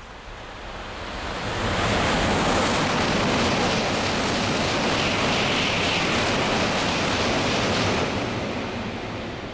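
N700 series Shinkansen passing through at high speed on wet track: a rushing noise of wheels, rails and air, with a low rumble and the hiss of spray. It builds over the first two seconds, holds steady for about six, and fades near the end back to rain.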